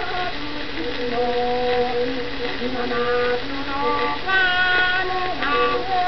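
Music playing from an old 78 rpm shellac record: a melody of long held notes stepping between pitches over accompaniment, with steady surface hiss.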